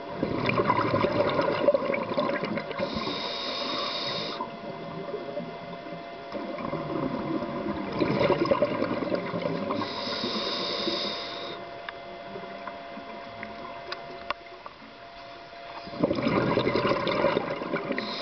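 Scuba diver breathing through a regulator underwater: three long bubbling exhalations, with a high hiss of inhalation twice between them. A faint steady tone runs underneath.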